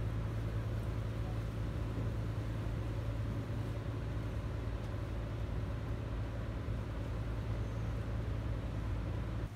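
Steady low mechanical hum with a constant pitched drone and a hiss of background noise, as from an engine or machine running without change.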